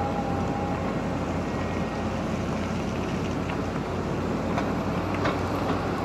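Caterpillar 320D excavator's diesel engine running steadily under load while the hydraulics raise and swing a full bucket, with a faint whine that fades about a second in. A few faint clicks of stones come near the end.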